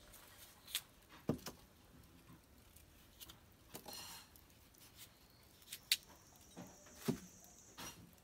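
Scattered light clicks and taps of a kitchen knife and small ingredients being handled, with a short scrape about four seconds in. A faint steady high whine sounds from about six to eight seconds in.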